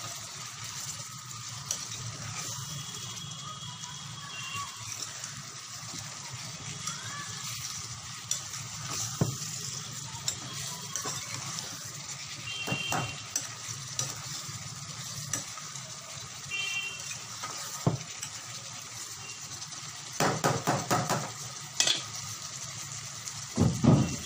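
Cluster beans and potatoes sizzling in a pan on a gas stove while a metal spoon stirs them, clinking and scraping against the pan. There are runs of louder clatter about twenty seconds in and again near the end.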